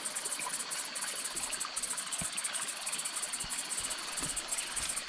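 Night-calling insects stridulating: a fast, high-pitched pulsed trill, many pulses a second, over a thin steady high tone.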